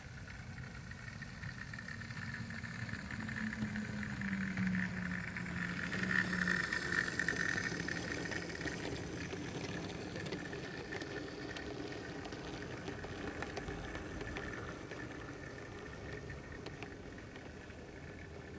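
Model railway locomotive and goods wagons running along the track, with the rattle of wheels clicking over rail joints and points. It is loudest about six to eight seconds in, then slowly fades as the train moves away.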